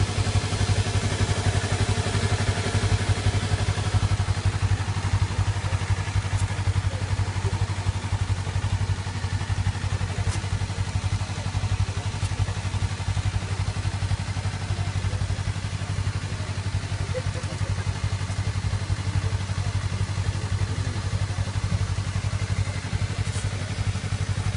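Honda CBR250RR's 250 cc parallel-twin engine idling steadily.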